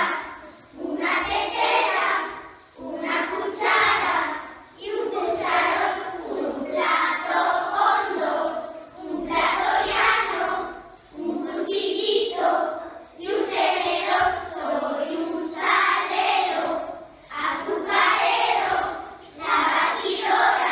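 A group of young children singing a song together in unison, in short phrases about every two seconds with brief breaths between them.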